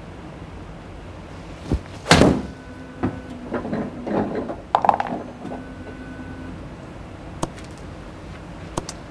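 Golf club striking a ball on a full swing: one sharp crack about two seconds in, followed by scattered quieter knocks and rustles.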